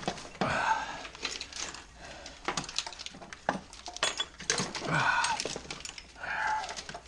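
Hand-handling of an engine wiring harness: many sharp clicks, rattles and plastic-and-metal clinks as wires and connectors are tugged and worked loose. A few short grunts or muttered vocal sounds come through near the start, in the middle and near the end.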